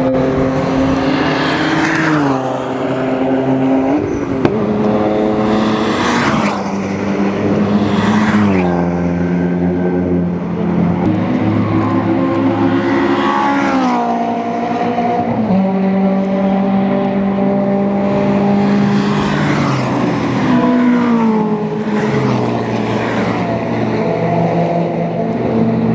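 Racing cars' engines and exhausts as several cars pass one after another on a circuit. The engine notes rise and fall in steps with throttle and gear changes, and a brief rush comes with each car that goes by.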